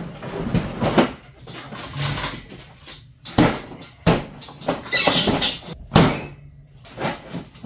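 Hands handling plastic parts and wiring on a snowmobile chassis: a series of sharp knocks and clunks, with a rustle of plastic about five seconds in.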